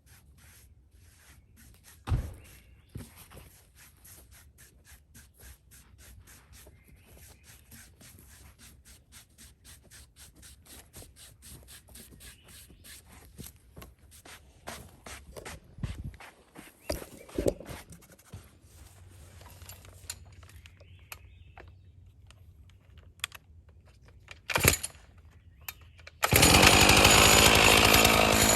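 A few scattered knocks and thumps over a faint background, then about 26 seconds in a chainsaw starts up suddenly and runs loudly and steadily.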